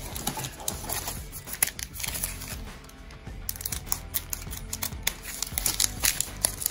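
Trading cards and their pack wrapper being handled: crinkling with many quick clicks and snaps, busiest in the second half, over steady background music.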